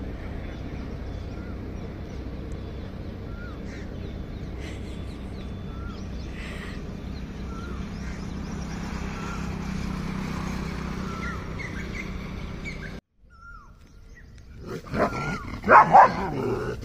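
Steady outdoor background noise with faint short chirps, then, after a sudden break, dogs barking angrily in loud bursts near the end, from a golden retriever and a German shepherd facing off.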